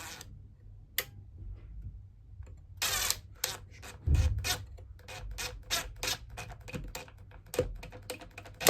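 Hand tightening of small screws into a vacuum cleaner motor's brush holders: a run of light clicks and taps from the screwdriver and metal parts. There is a short rasp about three seconds in and a dull knock about a second later.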